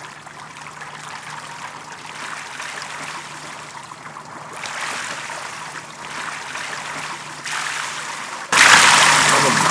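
Pool water splashing and sloshing as a swimmer moves through it, getting louder about halfway through and much louder about a second before the end as he comes up close by.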